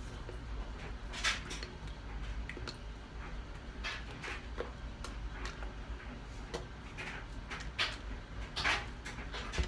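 Brief soft brushes and taps of hands and sleeves against each other and a shirt as a person signs, five or so scattered through, over a steady low hum.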